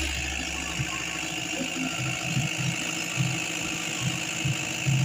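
Diesel engine of a 30 kVA generator set running steadily, heard up close through its open soundproof enclosure door.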